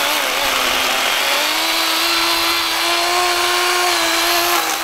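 DeWalt 12-inch cordless electric chainsaw running and cutting through a small dead branch. It makes a steady high motor whine whose pitch sags briefly about a second in, then holds steady.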